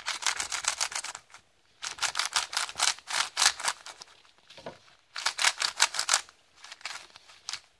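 Plastic 3x3 speed cube being turned quickly by hand: three runs of fast clicking layer turns with short pauses between them, and a few single turns near the end.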